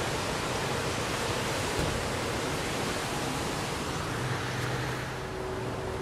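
Strong Santa Ana wind rushing steadily over the microphone. Wind chimes ring faintly through it with long, sustained tones, and a new chime note sounds about five seconds in.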